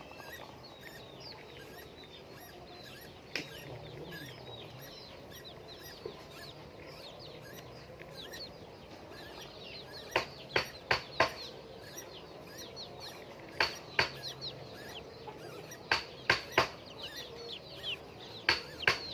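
Laying hens clucking and chirping, many short high calls that slide down in pitch. From about halfway through, several loud sharp clicks come in quick groups.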